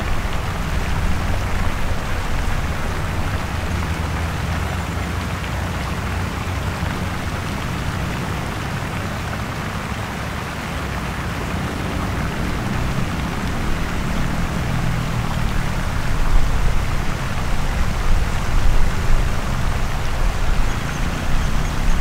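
Busy city street traffic: a steady hiss of passing vehicles over low engine rumble, with heavier engines growing louder about two-thirds of the way through.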